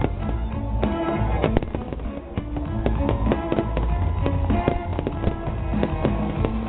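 Fireworks salute bursting in rapid, repeated bangs, several a second, with music of held, changing notes playing alongside.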